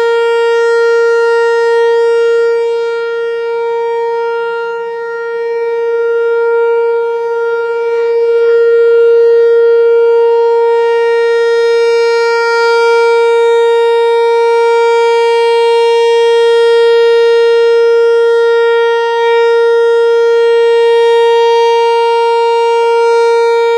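Pole-mounted civil defense warning siren sounding its monthly test: one steady held tone that swells and fades slowly in loudness, without rising or falling in pitch.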